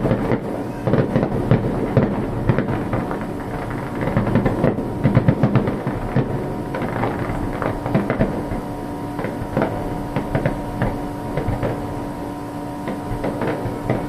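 Fireworks going off in a dense run of sharp pops and crackles, with a steady hum underneath.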